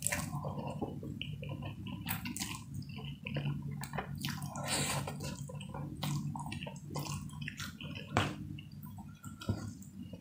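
Close-up eating of instant fried noodles: wet chewing, lip smacks and slurps of noodle strands, with a longer slurp about halfway through.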